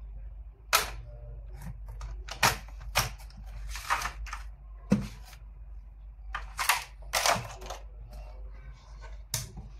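Irregular clicks, taps and short rustles of plastic packaging and a cardboard box being handled, with a sharp knock about five seconds in, over a low steady hum.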